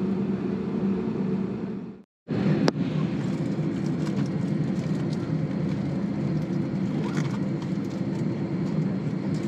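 Steady low hum inside an Airbus A321neo's passenger cabin after landing. The sound drops out briefly about two seconds in, then comes back with a sharp click and a few light ticks later on.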